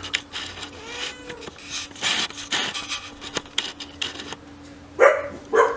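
Leaves and stems of dense garden plants rustling and brushing, a run of irregular scratchy rubbing noises. A short pitched call or voice sound comes near the end.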